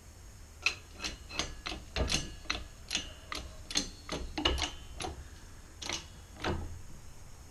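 Hydraulic bottle-jack shop press being pumped by its long handle: a run of sharp clicks and clacks, two or three a second, that stops near the end.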